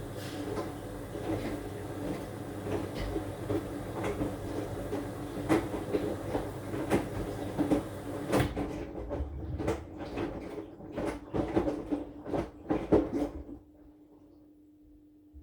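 AQUA AQW-DX12M front-loading drum washing machine turning its drum with a laundry load in a standard wash: a steady motor hum with irregular knocks as the clothes tumble, the knocks coming thicker and louder toward the end. The drum then stops near the end, leaving only a faint hum. The sound comes through the machine's top panel.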